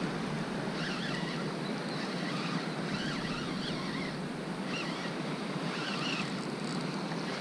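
Steady wash of surf and moving water at the shore, with wind on the microphone.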